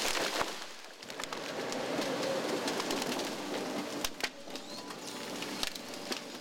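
Steady outdoor machine noise with scattered sharp knocks and cracks as an excavator's grapple head grips and handles felled poplar logs.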